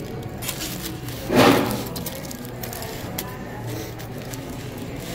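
Aluminium foil wrapper crinkling and rustling as a taco is unwrapped by hand, with scattered small crackles and one louder rustle about a second and a half in.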